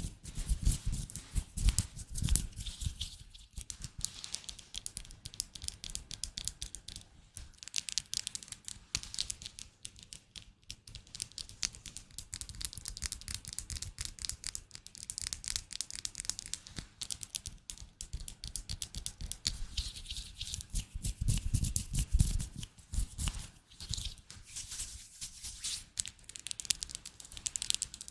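Close-up ASMR trigger sounds: a dense run of fine taps and crinkly scratching, with heavier low thumps near the start and about three-quarters of the way through.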